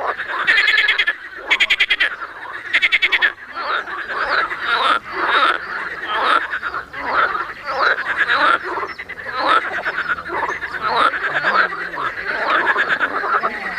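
A chorus of frogs croaking, many calls overlapping. In the first few seconds three short, fast rattling trills stand out above the rest.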